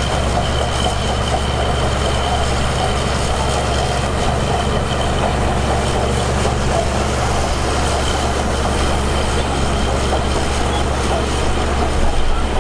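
Heavy diesel earthmoving machinery, a bulldozer or dump truck, running steadily with a constant low engine drone and a faint high whine over it.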